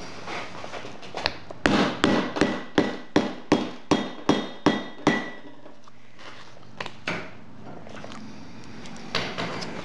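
Hammer tapping a snap-fastener setting tool about ten times, roughly three blows a second, each with a short metallic ring, to set a metal snap through the bag's fabric. A few lighter clicks and taps follow.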